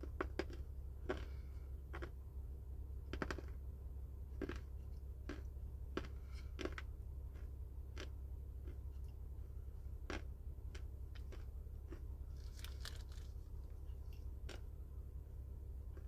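Close-up chewing of a dry chunk of Chinese loess clay: sharp, irregular crunches, frequent for the first several seconds, then sparser with a small cluster near the end.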